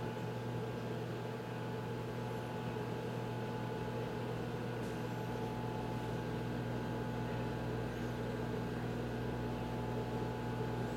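Microwave oven running: a steady electrical hum with its fan noise, unchanging throughout.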